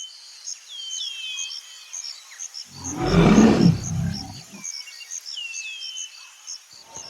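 Jungle ambience sound effect: birds calling in short falling whistles over a high chirping that repeats about twice a second. A big cat's roar, the loudest sound, comes in about three seconds in and lasts nearly two seconds.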